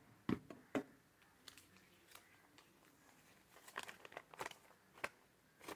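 Two sharp knocks near the start as plastic resin bottles are handled, then a folded paper instruction leaflet being opened out, crinkling in short irregular bursts, most thickly about four seconds in.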